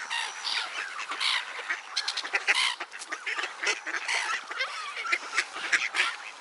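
A crowd of ducks calling over one another, with geese among them, as the flock gathers for thrown food. Many short calls overlap all the way through.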